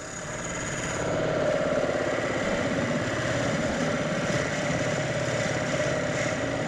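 Wood lathe running, spinning an ash blank while a 38 mm drill bit bores a shallow hole into its end grain; the sound builds over the first second, then holds steady.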